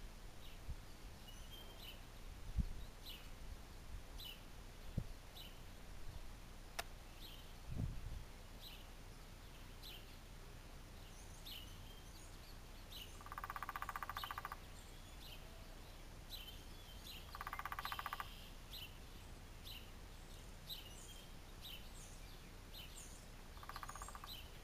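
Woodpecker drumming: three bursts of very rapid knocks, the first lasting about a second and a half, then two shorter ones later on. Short, high bird chirps repeat about once a second throughout.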